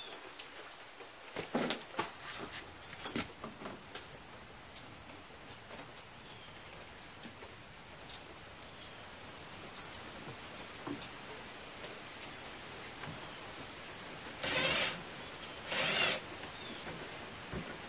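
A cordless drill runs in two short bursts near the end, driving screws to fasten the recoil starter housing onto a lawn mower engine. Before that come scattered light clicks and knocks.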